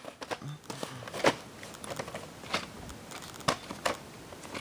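Scattered sharp plastic clicks and light rustling from a VHS tape and its case being handled, a click about every second.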